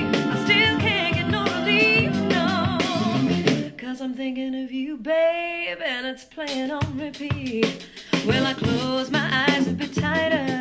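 A song with singing, drums and guitar played back through a small round Bluetooth speaker, the Vifa City.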